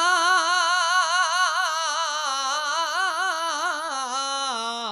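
A man's voice holding one long sung note with wide vibrato, unaccompanied, in kavishri folk-devotional style; the note steps down in pitch about two seconds in and again near the end.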